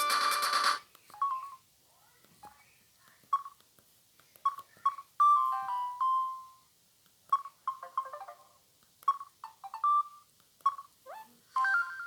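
Samsung SGH-M150 mobile phone: a ringtone with many notes cuts off abruptly under a second in, followed by a string of short electronic beeps at an irregular pace, mostly on one pitch with a few higher and lower, as the phone's keys are pressed.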